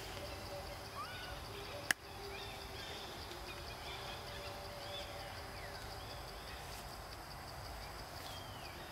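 Outdoor forest ambience: scattered short bird chirps over a steady high-pitched insect drone, with one sharp click about two seconds in.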